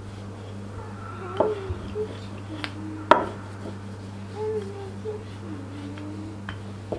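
Wooden rolling pin rolling out thin dough on a floured countertop, with a few sharp knocks as it bumps the counter, the loudest about three seconds in, over a steady low hum.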